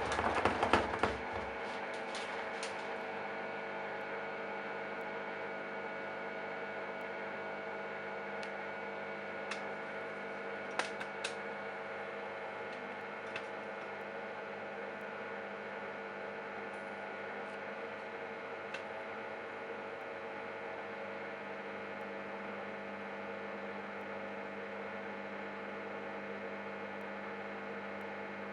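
Candy Bianca washing machine: the drum's tumbling stops about a second and a half in, leaving a steady electrical hum from the machine with a few faint clicks.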